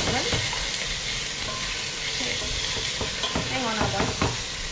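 Chicken pan-frying in oil, with a steady sizzle and a few light knocks of utensil on pan.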